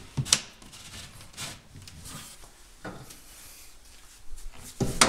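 Wooden knocks and rubbing as a kitchen base cabinet is nudged and adjusted to level, with a sharp knock about a third of a second in and the loudest knock near the end.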